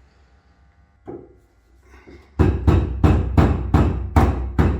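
A rapid series of sharp knocks, about four a second, starting about halfway through after a quiet spell.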